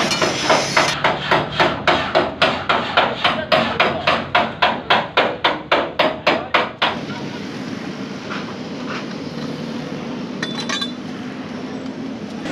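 A hammer beating sheet metal in a fast, even rhythm, about three to four ringing blows a second, as in panel-beating a dented truck body. The blows stop about seven seconds in, leaving a steady background hum.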